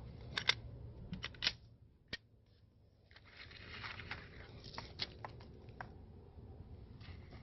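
Faint handling noise: a few sharp clicks and knocks, then rustling with more clicks, over a low steady hum.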